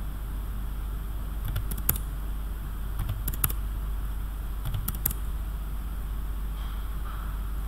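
Computer mouse clicks in three quick groups, as segments are selected and removed one by one, over a steady low hum.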